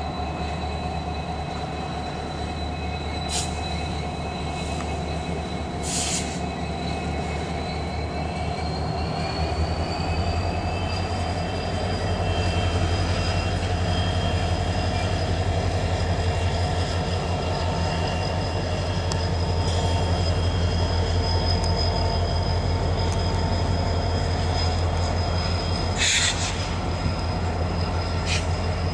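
Norfolk Southern freight train of Triple Crown RoadRailer trailers rolling past with a steady low rumble, getting louder about a third of the way in. Steady high-pitched wheel squeal runs over it, and a few sharp clanks come through.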